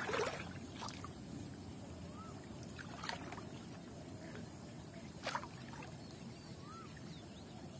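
Shallow water sloshing and splashing around a person's legs as they wade and shift through weedy marsh water. A few separate splashes stand out, the loudest right at the start, over a steady low background.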